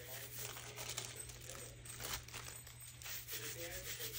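Small clicks and taps with crinkly rustling, from craft materials being handled on a work surface.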